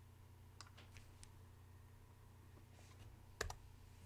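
Computer mouse clicks: three faint clicks early, then a louder double click about three and a half seconds in, over a faint steady low hum.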